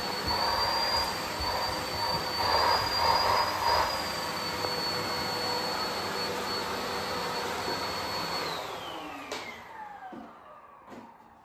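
Vacuum cleaner running steadily with a high whine, then switched off about three-quarters of the way through, its whine falling in pitch as the motor spins down. A few faint knocks follow.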